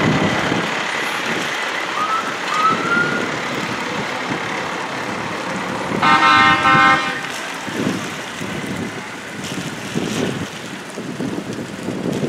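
Parade vehicles passing slowly on wet pavement, engines running and tyres on the wet road, with one vehicle horn blast about a second long some six seconds in.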